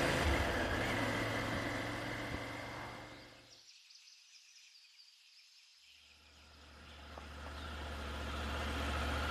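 Motorcycle engine running steadily while riding. It fades out to near silence about three and a half seconds in, then fades back in after about two seconds and runs on steadily.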